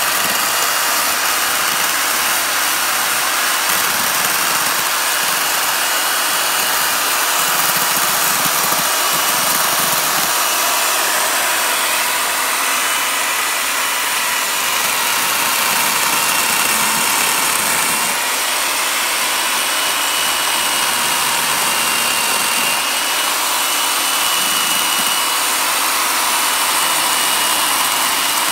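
Chainsaw running steadily as its bar cuts and carves the deadwood of a juniper bonsai trunk.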